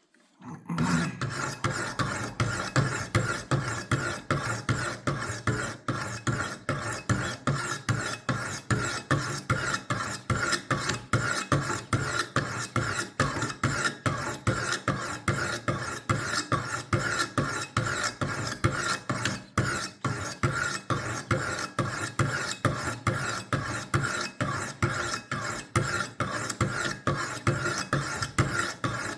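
Wicked Edge WE60 guided sharpener's coarse diamond stones stroked quickly and evenly along a steel knife blade, a rhythmic rasping scrape, starting about half a second in.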